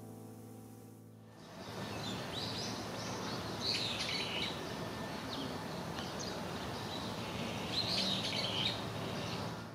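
Small birds chirping outdoors in several short bouts over a steady background hiss of open-air ambience. A piano piece fades out in the first second before the birdsong comes in.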